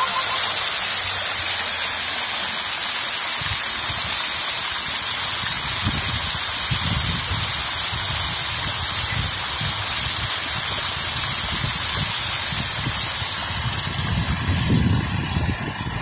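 Fountain jets splashing steadily into their basin: a constant hiss of falling water. An irregular low rumble joins about six seconds in and again near the end.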